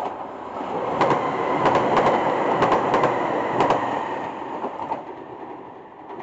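A JR Shikoku 2000-series diesel railcar passing through the station at speed without stopping. There is a rising rush of running noise with a run of sharp wheel clacks over the rail joints as the cars go by, and the noise fades away in the last couple of seconds as the train recedes.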